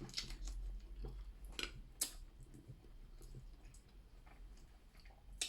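Eating seafood-boil shellfish: scattered small clicks and snaps of shell being cracked and picked apart, with soft wet chewing and squishing between them.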